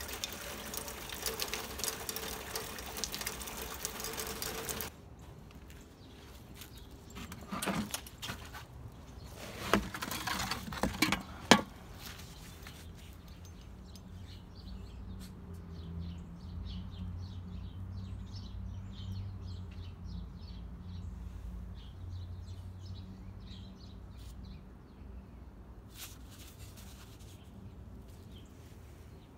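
Steady hiss of rain for the first few seconds, cut off abruptly. Then a few handling clicks and one sharp click near the middle. Small birds chirp repeatedly through the second half, over a low steady hum.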